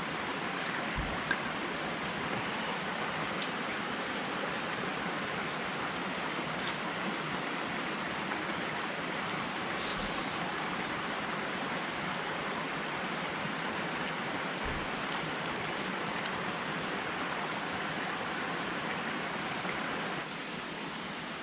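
Steady rush of a mountain stream, with a few faint ticks over it; the level drops slightly near the end.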